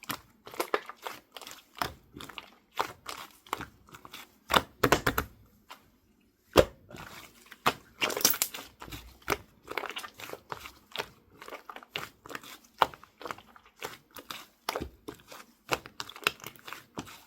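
Clear slime being squished and poked by hand, giving a fast, irregular run of sticky clicks and small pops. There is a brief pause about six seconds in, followed by one sharp snap.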